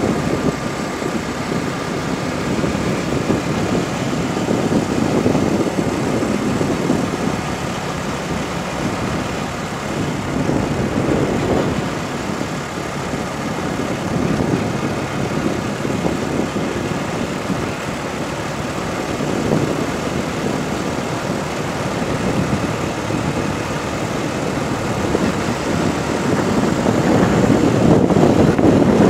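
Strong wind buffeting the microphone of a moving vehicle, swelling in gusts, over the steady running of its engine and tyres on fresh asphalt. It grows louder near the end.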